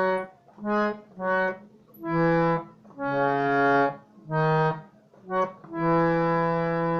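Hand-pumped reed harmonium picking out a melody one note at a time: about eight separate notes with short gaps, the last held for about two seconds.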